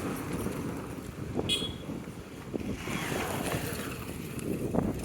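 Outdoor traffic noise with wind buffeting the microphone, and a brief high squeak about one and a half seconds in.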